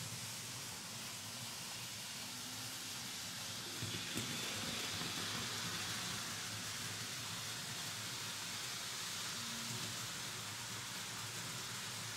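Märklin H0 model trains, BR50 steam locomotives with coaches, running on stamped-metal Märklin M-track: a steady rushing rattle of metal wheels on the tinplate rails. It grows louder about four seconds in, with a couple of clicks, then eases a little.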